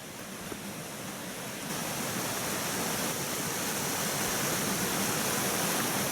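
Stream water rushing steadily, growing louder over the first couple of seconds and then holding.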